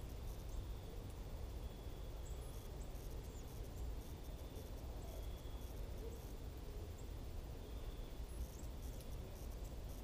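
Faint evening outdoor ambience: insects trilling in a thin high tone that comes and goes every few seconds, with a few faint high chirps, over a steady low rumble.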